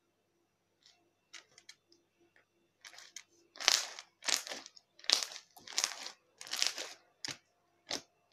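Crunchy slime with foam beads being squeezed and kneaded by hand. A few faint pops at first, then from about three and a half seconds in a run of loud crackling crunches, one with each squeeze, a little more than one a second.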